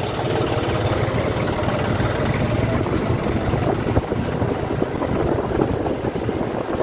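A vehicle's engine running steadily at idle, a continuous low rumble.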